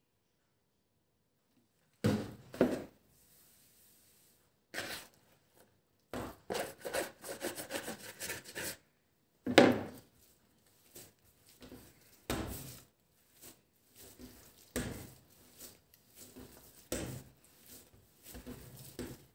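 Yeast bread dough being kneaded by hand on a countertop, starting after about two seconds: irregular thumps as it is pressed and turned, with rubbing between them. Near the end, hands rub together to clean off the sticky dough.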